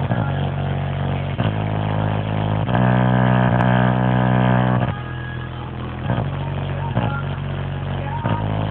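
Car subwoofers driven by a Boss Riot R3400 Class D monoblock amplifier, playing deep, held bass notes that change every second or two. The notes are loudest in a long one about three seconds in.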